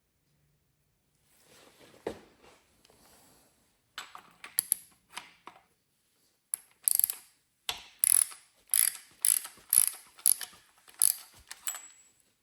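A ratchet wrench clicking through a series of short strokes, about two a second, as a threaded part is run down in the engine head before torquing. There are a few lighter knocks of tool and metal before the ratcheting starts.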